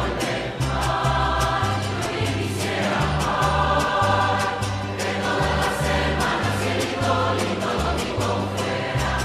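Large choir singing a Mexican song over a mariachi-style band, with a moving bass line and a steady strummed beat.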